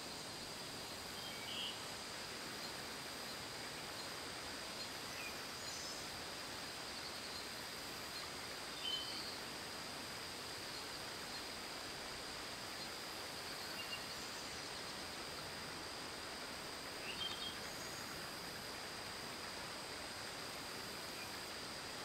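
Outdoor nature ambience: a steady hiss with a constant high-pitched drone, and a handful of short, scattered bird chirps about seven times through.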